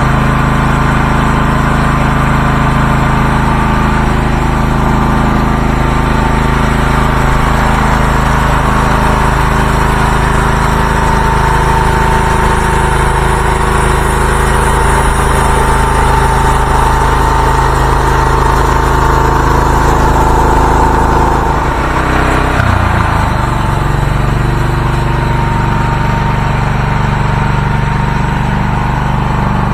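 The small DuroMax engine of a homemade band sawmill runs steadily at working speed, with a steady high whine over it. A little over 20 s in, the engine note breaks and settles at a different pitch.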